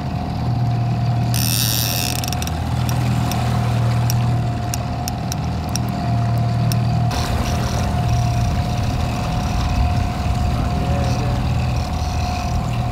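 Boat motor running steadily at trolling speed: a low drone with a steady higher whine over it. A brief hiss comes about a second in, and a few faint ticks are scattered through the first half.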